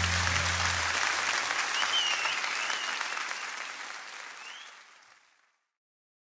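Audience applauding and cheering at the end of a song, with high whistles, fading out about five seconds in.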